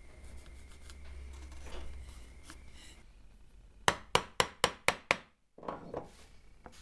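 Faint pencil scratching over a low hum, then a wood chisel driven into a thin hardwood strip with six quick, sharp blows, about five a second, followed by a short scrape of the chisel in the cut.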